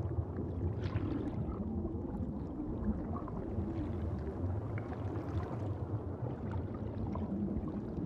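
Underwater ambience: a steady, muffled low rumble of water with faint scattered clicks.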